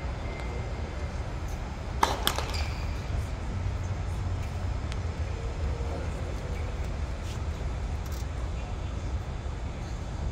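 A tennis ball struck sharply with a racket about two seconds in, followed at once by a second, softer knock, over a steady low outdoor rumble.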